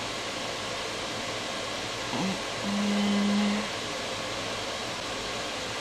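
A man hums a single steady "mmm" of about a second while tasting homemade ice cream, starting roughly two and a half seconds in after a brief rising sound. Under it runs a steady background hiss.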